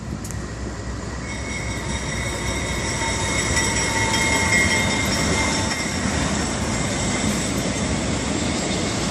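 Freight train rolling past: a steady rumble of steel wheels on rail, with thin high wheel-squeal tones rising above it from about a second in.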